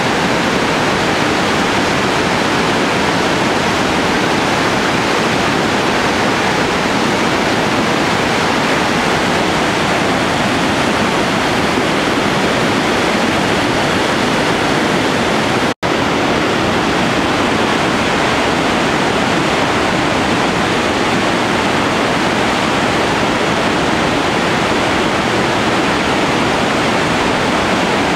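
Merced River rapids rushing at high spring snowmelt flow: a loud, steady rush of whitewater. The sound cuts out for an instant just past the middle.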